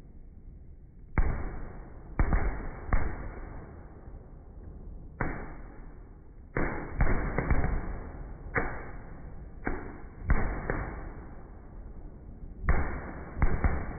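Aerial fireworks bursting: a string of loud bangs at uneven intervals, about fifteen in all, some coming in quick clusters of two or three. Each bang trails off over a fraction of a second.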